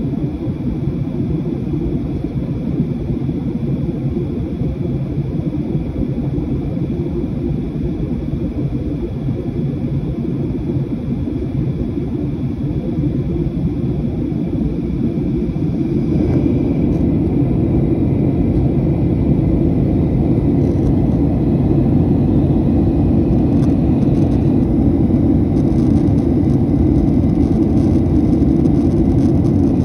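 Steady cabin noise of a Boeing 737 airliner in flight: a low, even rumble of engines and rushing air. About halfway through it grows louder and fuller, and stays that way.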